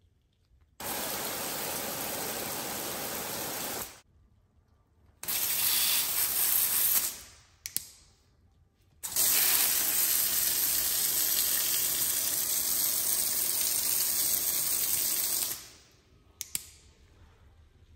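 Water spraying from a garden hose's pistol-grip spray nozzle in three bursts, the last and longest about six seconds, with the water cut off between them as the nozzle's spray settings are tried one after another. Short clicks come between the bursts and near the end.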